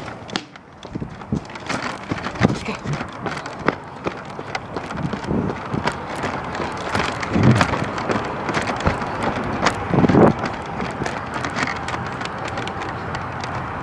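Rustling and jostling of a hand-held camera carried by someone running on pavement, with a stream of irregular footfalls and knocks. A couple of louder low rumbles come about seven and ten seconds in.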